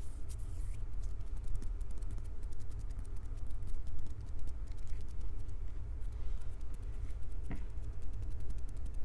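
Hands gripping and rubbing a Tascam recorder's microphones up close: a dense, irregular crackle of small clicks over a low handling rumble.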